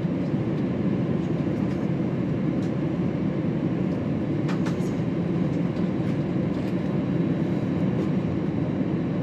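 Steady cabin rumble of an Airbus A321 on the move, its engines and airframe heard from a passenger seat, with a faint click about four and a half seconds in.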